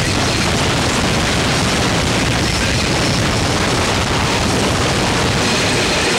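Loud, steady wall of distorted noise spread evenly from low to high pitches, with no breaks, beat or clear tones.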